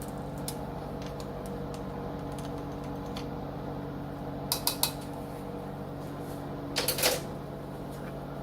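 Kitchen utensils and containers clicking and clattering against a bowl a few times while seasoning is measured in: three quick clicks about halfway through and a louder clatter near the end, over a steady low hum.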